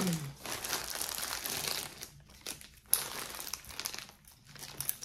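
Plastic bag crinkling as it is handled: a long stretch of rustling for about two seconds, then shorter crinkles with a sharp click about three seconds in.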